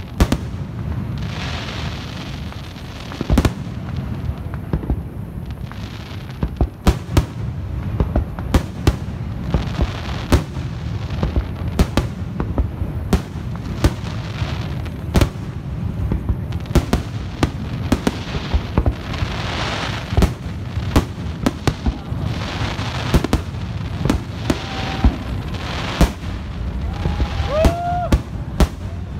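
Aerial fireworks display: a rapid, irregular string of sharp bangs from shells bursting overhead, several a second at times, over a constant low rumble.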